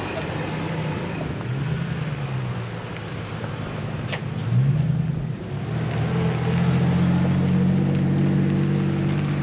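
A vehicle engine revving up and easing off a couple of times, with the loudest rise about four and a half seconds in. From about six seconds in it runs steadily.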